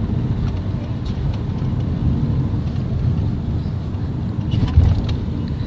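Steady low road and engine rumble inside a moving car's cabin, with a louder thump a little under five seconds in.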